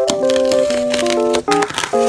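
Background music of held keyboard-like notes changing every fraction of a second, with short crackling clicks and crinkles over it.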